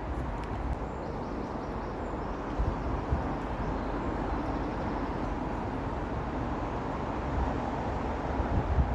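Steady road traffic noise from a busy road, an even rush of passing vehicles, with a few brief low thumps about two and a half to three seconds in and again near the end.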